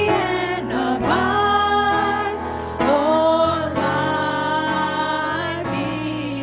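Contemporary Christian worship song: women's voices singing long held notes in harmony over keyboard and acoustic guitar.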